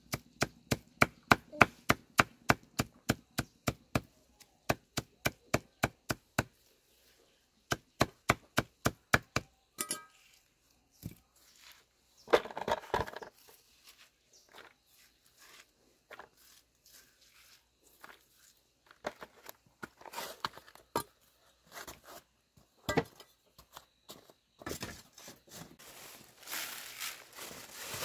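Knife chopping on a wooden board in quick, even strokes, about four a second, in two runs with a short pause between. Slower, scattered knocks and rustling follow.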